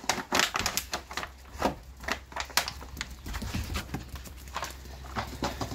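Irregular knocks and clatters on a wooden deck: a dog pushing a chewed plastic bottle about and footsteps on the boards.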